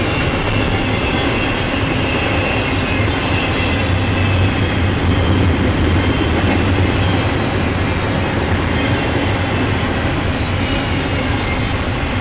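Double-stack intermodal container well cars of a freight train rolling past: a loud, steady rumble of steel wheels on rail, with a faint high wheel squeal over it.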